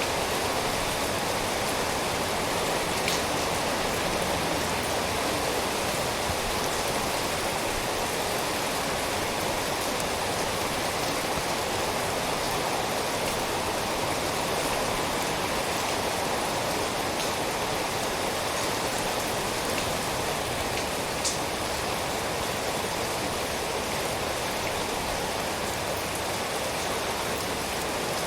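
Steady rain falling, an even hiss of water with a few sharp drip ticks now and then.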